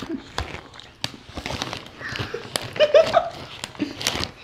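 Smartfood popcorn bag crinkling as a hand rummages in it, with scattered small crunches of popcorn, and a short vocal sound about three seconds in.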